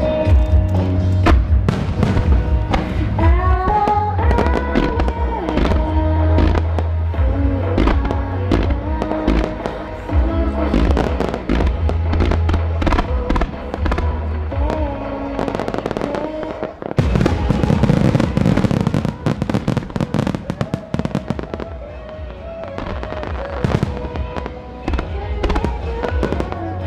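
Fireworks shells bursting in quick succession over loud music with a deep bass line. About seventeen seconds in, the bass drops out and a dense run of crackling bursts fills a few seconds before the music comes back.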